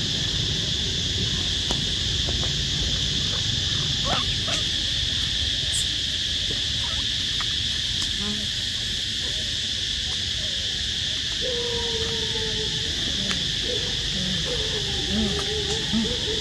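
Steady, high-pitched chorus of insects droning without a break, over a low rumbling background. A few faint wavering calls come in during the second half.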